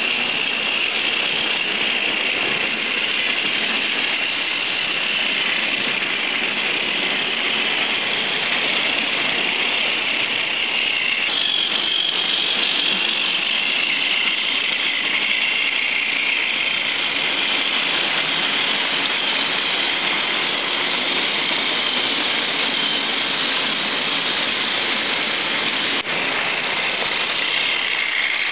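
Several Tomy Plarail battery-powered toy trains running on plastic track: a steady whir of their small geared motors with a continuous rattle of wheels and couplings on the track.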